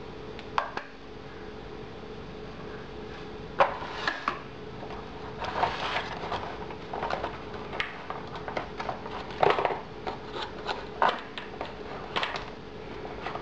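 Irregular clicks, taps and rustles as the wrecking knife and its packaging are handled and unpacked, with the sharpest knocks about three and a half seconds in and again near the middle.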